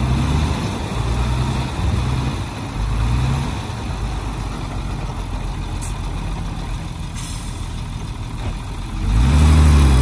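Heavy-equipment diesel engines from a dump truck and a Komatsu D20 bulldozer running and revving, the pitch rising and falling several times in the first few seconds. The engine gets louder with a rev-up about nine seconds in.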